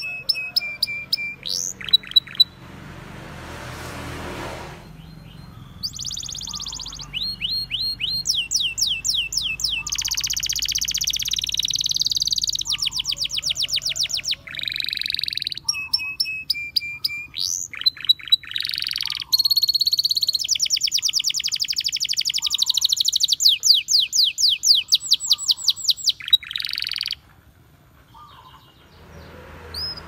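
Domestic canary singing a long, varied song of rapid trills and repeated high chirps, with a short break a few seconds in and another pause near the end.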